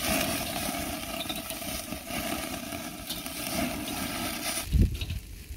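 Pork belly sizzling and crackling over a charcoal fire on a kettle grill. The sound stops abruptly near the end and is followed by a brief low thump.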